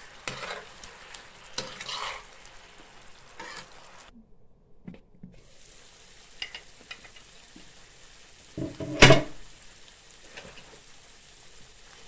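Chicken pieces in a thick sauce sizzling in a frying pan while a spatula scrapes and stirs them. The sound drops out briefly about four seconds in, and a single sharp clank comes a little after nine seconds.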